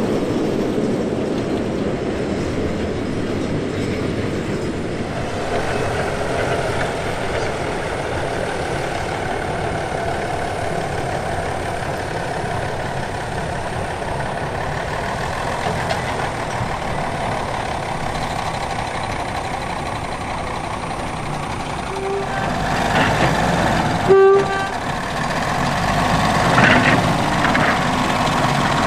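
Sugar cane railway diesel locomotive running steadily, hauling a rake of cane bins. Late on its horn gives two short toots, the second louder.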